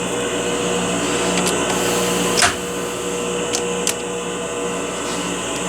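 Lathe running steadily, its motor giving a constant hum with a few fixed tones. A sharp click comes about two and a half seconds in, with a couple of faint ticks a second or so later.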